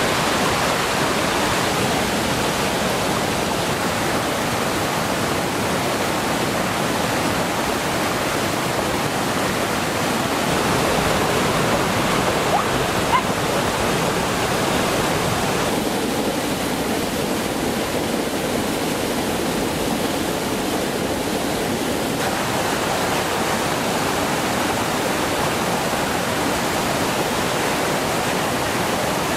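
Swollen, muddy stream rushing over rocks and small cascades: a steady, loud rush of fast water, slightly duller for a few seconds in the middle.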